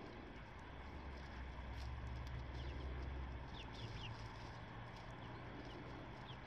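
Faint outdoor ambience: a few short, high bird chirps over a low rumble that swells and fades around the middle.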